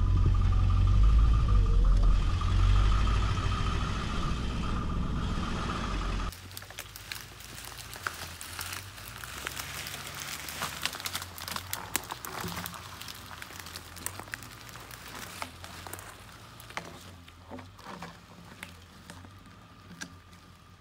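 7.3-litre diesel V8 of a Ford F-350 running under load in four-wheel-drive low, heard from inside the cab while pulling a log on a line. About six seconds in it cuts off abruptly to much quieter crackling and snapping of twigs and brush, with many small sharp cracks.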